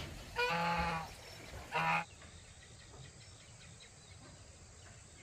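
Two short farm animal calls, one about half a second in and one near 2 s, each a steady pitched cry. After that the sound cuts to a faint, even outdoor background with faint ticks.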